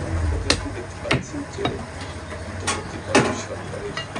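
Butcher's meat cleaver chopping goat meat against a wooden chopping block: about five sharp, separate chops, the loudest about three seconds in.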